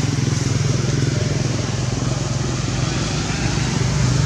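Motorbike engine running steadily with a low, even drone and rapid pulsing and no change in pitch.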